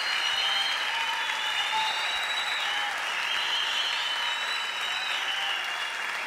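Theatre audience applauding steadily, with high drawn-out tones running over the clapping.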